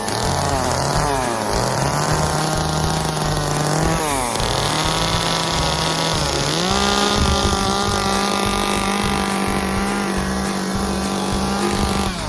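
Small two-stroke chainsaw running at high revs while carving. Its pitch briefly drops and climbs back up three times, otherwise holding steady.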